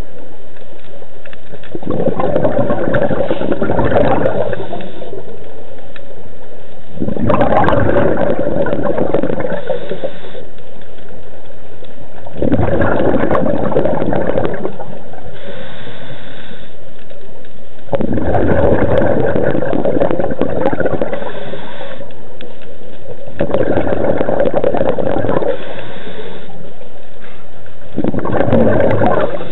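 Scuba diver breathing through a regulator underwater: a gurgling rush of exhaled bubbles about every five and a half seconds, each lasting two to three seconds. Between the bursts there is a faint high hiss as the diver breathes in.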